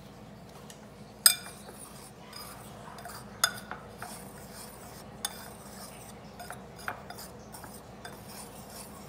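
Metal wire whisk stirring dry flour in a ceramic bowl: a scratchy, swishing rustle with a few sharp clinks of the wires against the bowl, the loudest about a second in.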